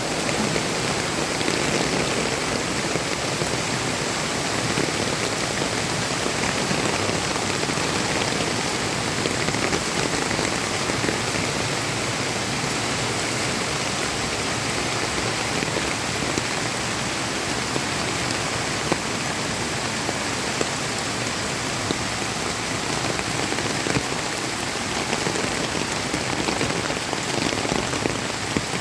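Typhoon rain falling steadily, an even unbroken hiss of drops on surfaces.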